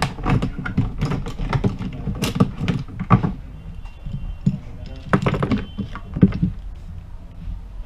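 Small metal repair clamps clicking and clattering against each other and the bench as they are picked up and handled: a quick, irregular run of sharp knocks that thins out in the middle and picks up again.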